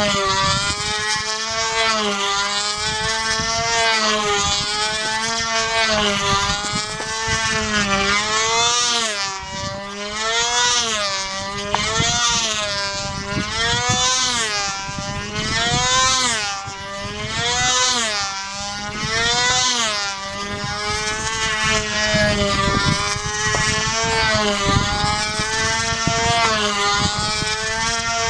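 Vintage Guillotine control-line combat model plane's small two-stroke glow engine running at high speed in a steady high-pitched whine. The pitch swings up and down about once every two seconds as the plane circles the pilot on its lines.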